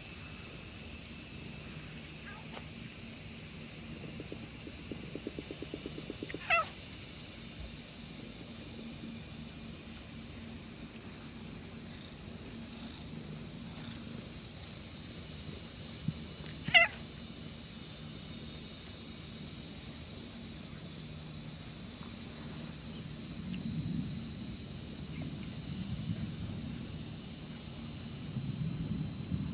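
Stray cat purring steadily as it is stroked, with two brief high-pitched cries about ten seconds apart. A steady high hiss runs underneath.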